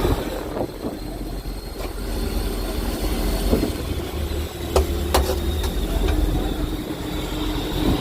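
Fishing boat's engine running steadily with a deep rumble and a hum. There are two sharp knocks about five seconds in.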